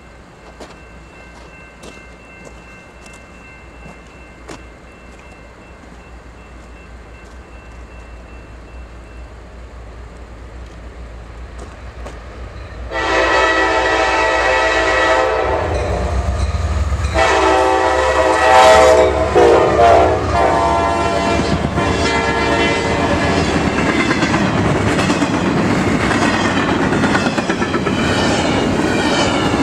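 Norfolk Southern freight train's diesel locomotives approaching, their rumble growing louder. About halfway through, the locomotive air horn blows a loud blast, breaks briefly, then blows a second longer blast whose pitch sags as the locomotives go by. After that the train passes, with engines working hard and wheels clacking over the rail joints.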